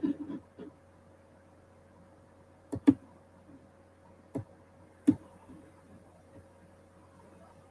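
A few short, sharp clicks, as from a computer mouse and keys: a quick cluster at the start, a pair about three seconds in, then two single clicks at about four and a half and five seconds, over a faint steady hum.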